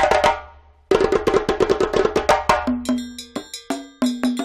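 Lively cartoon background music built on quick, wood-block-like percussive notes. It breaks off briefly about half a second in, then picks up again, and the strikes grow sparser over held low notes near the end.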